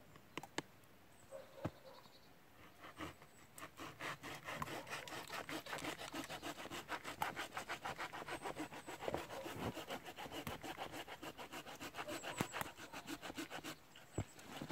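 Folding hand saw cutting through dead hardwood in fast, even back-and-forth strokes, starting about three seconds in and stopping just before the end. A few single knocks come before the sawing begins.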